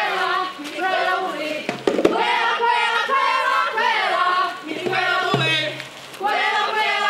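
A group of voices singing together in short phrases of about a second each, with brief breaks between them and a couple of sharp knocks.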